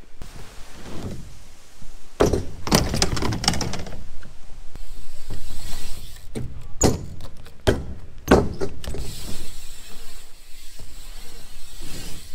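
BMX bike riding a backyard mini ramp: tyres rolling on the ramp surface, with clusters of thunks and rattles from the bike and ramp, the loudest about two to four seconds in and again around seven to nine seconds in.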